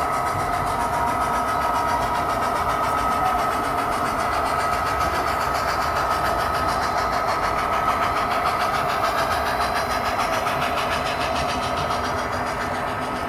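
Model trains running on the layout: a steady drone with a constant whine, the engine sound of a passing model diesel locomotive.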